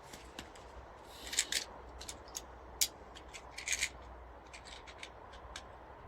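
Scattered small clicks and rubbing sounds of something being handled, irregular and a little louder in clusters about a second and a half and four seconds in, with the sharpest click near three seconds, over a faint low hum.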